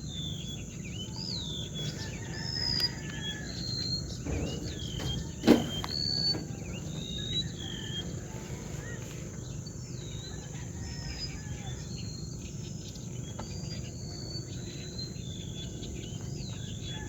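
Birds chirping throughout in short, repeated whistled notes over a steady high-pitched insect drone. A single sharp knock comes about five and a half seconds in.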